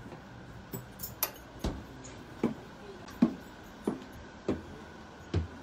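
Footsteps going up the stairs inside a bilevel Amtrak Superliner car: a steady series of dull thuds, a little under a second apart, over a faint steady hum.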